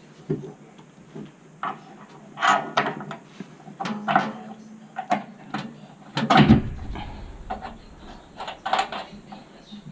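Irregular knocks and clatter of hard objects being handled, with one louder knock about six and a half seconds in.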